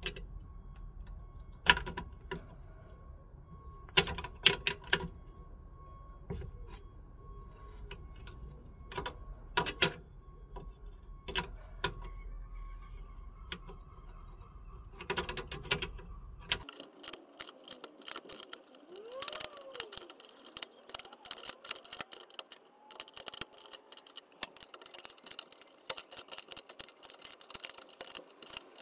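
Steel spanner clinking against the brake pipe nut on the rear wheel cylinder: a scatter of sharp metallic clicks and taps as the nut is worked. Near the end comes a quick run of small ticks.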